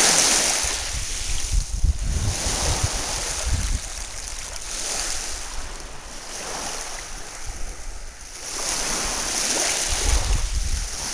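Small lake waves washing up over sand and pebbles at the water's edge, swelling and easing several times. Wind gusts rumble on the microphone now and then.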